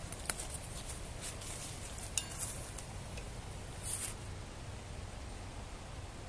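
Footsteps crunching on leaf litter and twigs and brushing through bushes, with scattered small snaps and crackles over a low, steady rumble.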